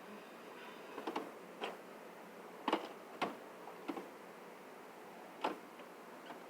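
Tools clinking and knocking as a mechanic's cluttered toolbox is handled, about six separate sharp metallic knocks spread over several seconds.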